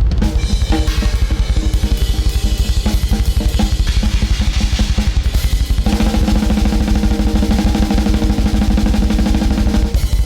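Drum kit played in a fast, dense run of bass drum and snare strokes. About six seconds in, a steady low pitched tone joins the drumming.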